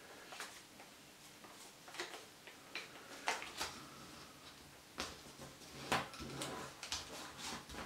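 A paper banknote, a 10 euro note, crinkling and crackling in the fingers as it is folded and creased. There are irregular sharp crackles, which grow busier about five seconds in as the folded note is pressed flat.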